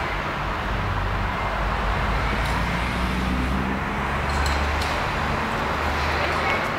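Steady vehicle rumble and hiss with a low engine hum, and a few faint clicks.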